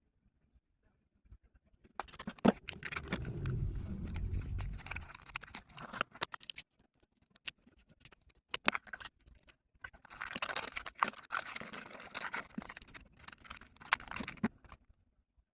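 Packaging being handled and opened: faint rustling and scratching with scattered clicks and taps, busiest a couple of seconds in and again about ten seconds in.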